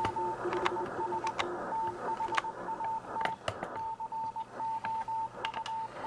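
Morse code from an ARRL W1AW code practice transmission heard over a radio: one steady mid-pitched tone keyed on and off into dits and dahs, with a few faint clicks.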